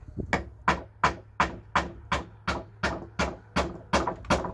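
Hammer nailing a wooden plank down onto log roof beams: a steady run of about a dozen sharp blows, roughly three a second.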